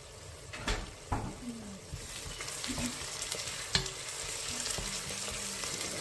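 Blended pepper mix and onions sizzling as they fry in coconut oil in a pot, stirred with a wooden spoon. There are a few sharp knocks of the spoon against the pot about a second in and again near four seconds. The sizzle grows fuller from about two seconds in.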